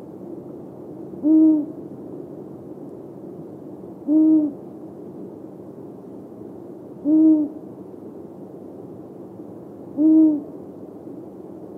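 Long-eared owl hooting: four single low, short hoots spaced about three seconds apart, each with a slight rise and fall in pitch.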